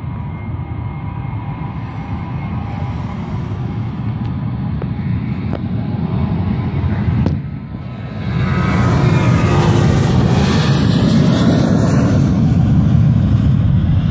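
Boeing 737-800 jet engines running up on the runway: a steady rumble that slowly grows, then, about eight seconds in, a much louder full-power takeoff roar with a high hiss over it.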